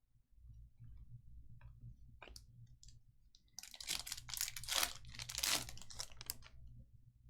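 A few light clicks and taps of cards being handled, then, about halfway through, some three seconds of crinkling and tearing in several surges: a foil trading-card pack wrapper being ripped open.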